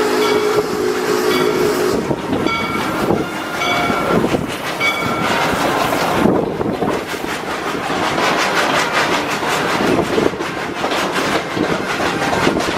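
Amusement-park train ride from aboard: the train's whistle holds a steady chord and stops about two seconds in. Then come short high wheel squeals and the running clatter of wheels over the rail joints, picking up into a quick, even rhythm from about halfway through.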